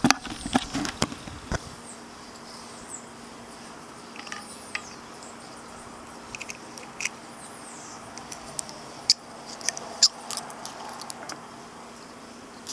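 Sharp clicks and taps from handling the metal parts of a Spyder Electra paintball regulator while its piston is worked out with an Allen key. Most of them come in the first second and a half, with a few more isolated clicks later on.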